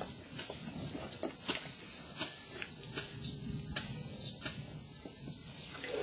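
Steady, high-pitched chorus of rainforest insects, with a few light clicks scattered through it.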